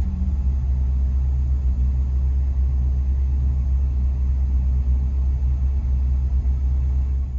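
Steady low rumble of a truck driving, heard from inside the cab: engine and road noise.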